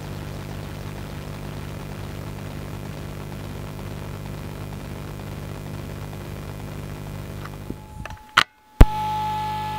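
Modular synthesizer run through a Korg Monotron Delay, playing a steady low drone of several held tones with hiss. Near the end it drops out with two sharp clicks, and a higher steady synth tone starts.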